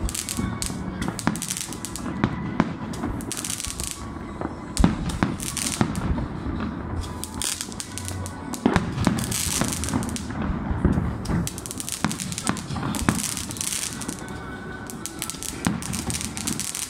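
Fireworks going off: many bangs at irregular intervals, mixed with bursts of crackling and hissing.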